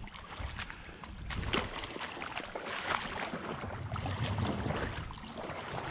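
Legs wading through a shallow creek, the water splashing and sloshing irregularly with each step.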